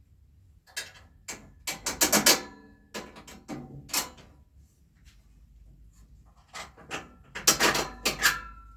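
Ski lift chair parts being handled and fitted together: clusters of knocks and scrapes as an armrest is set in place and bolted on, with a short ring near the end.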